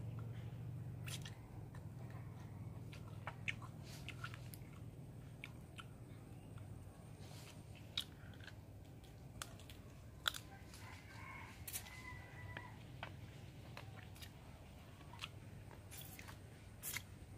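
A person chewing and biting into grilled satay chicken feet, with irregular sharp crunches and clicks as the bones and skin are gnawed. A low steady hum runs underneath.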